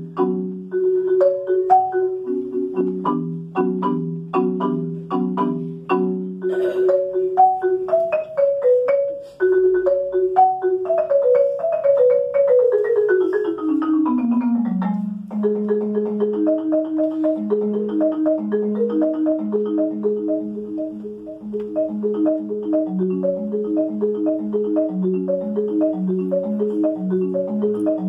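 Solo concert marimba played with four mallets: struck wooden-bar notes in repeated broken chords, with a run of notes falling steadily in pitch about 11 seconds in, then a steady flowing pattern of overlapping notes.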